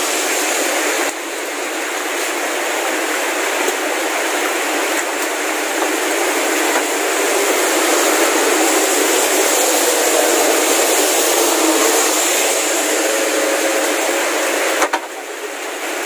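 Steady rain falling, an even hiss with no rhythm, that drops lower about a second before the end.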